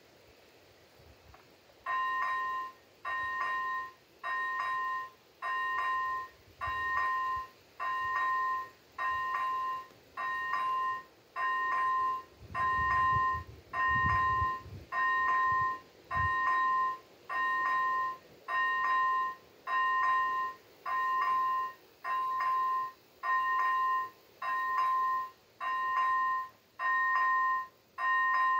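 ZV.01 level-crossing warning bell starting up about two seconds in, then sounding a steady two-pitch electronic ding that repeats about once a second. It signals that the crossing is activated for an approaching train.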